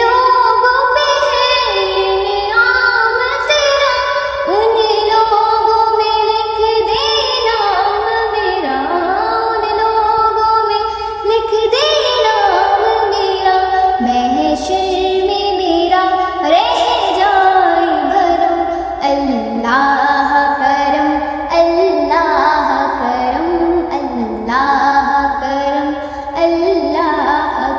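Song ringtone: a high voice sings a melody of held and gliding notes over music.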